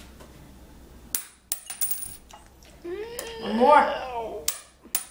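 A quarter striking a stone countertop about a second in and bouncing, clattering with a thin metallic ring. Then a drawn-out vocal exclamation, the loudest sound here, and a couple more sharp clicks near the end.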